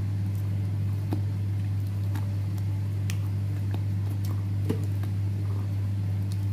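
A steady low hum throughout, with a few faint clicks and taps of a spatula against a glass bowl as thick cake batter is folded.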